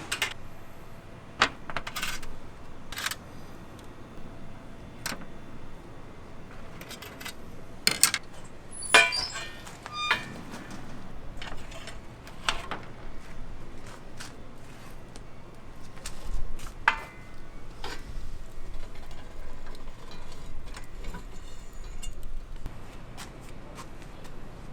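Irregular clinks, knocks and clatter of metal and hard objects being handled, with a ringing metallic clink about nine seconds in.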